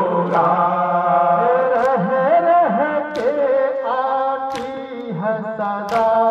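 Several men's voices chanting a noha together in long, held melodic lines. Five sharp slaps at an even beat about every second and a half, chest-beating (matam) in time with the chant.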